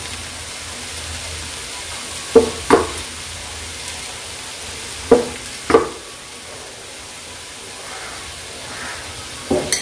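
Wooden spoon stirring aviyal, a mix of cut vegetables and ground coconut, in a nonstick pan, over a faint steady sizzle. The spoon knocks against the pan twice about two and a half seconds in and twice more about five and a half seconds in.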